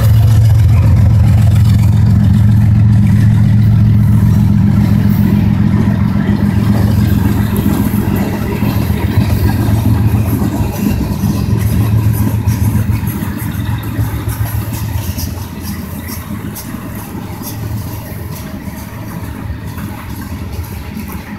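CSX GE ES40DC diesel locomotives under power pulling a departing freight. Their heavy engine drone is loud at first and fades away over the first dozen seconds as they move off. After that, freight cars roll past with a rhythmic clatter of wheels on the rails.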